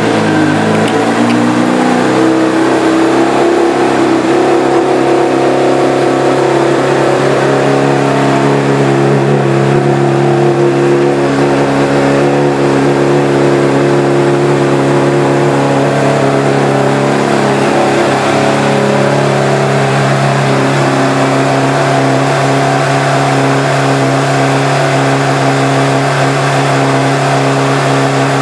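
A 2008 Honda CBR600RR's inline-four engine, fitted with a Two Brothers Racing aftermarket exhaust, idling steadily just after being started.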